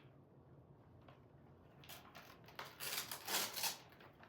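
Gift wrapping rustling and crinkling as a cat paws and tears at a wrapped present, in short bursts about two and three seconds in.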